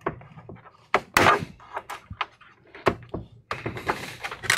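A plastic prying tool working at the edge of an all-in-one PC's clip-on plastic back cover: a sharp knock about a second in, then several lighter clicks and knocks, and a rougher scraping stretch near the end.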